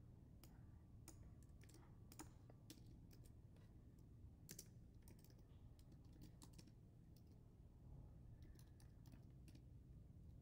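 Faint typing on a computer keyboard: irregular keystrokes in short runs over a low, steady hum.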